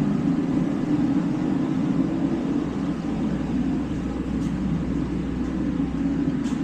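Steady low rumble of an idling diesel truck engine, running evenly with no change in pitch.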